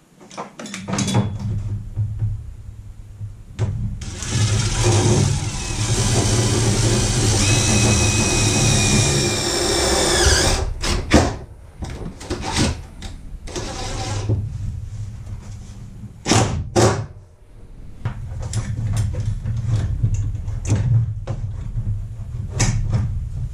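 Cordless drill run for about six seconds into a plywood wall, its motor whining steadily before winding down, followed by several short bursts of the trigger. A steady low rumble runs underneath throughout.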